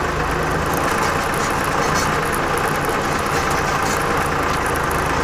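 Torpedo TD 55 tractor's diesel engine running steadily as the tractor drives through deep wet snow in four-wheel drive.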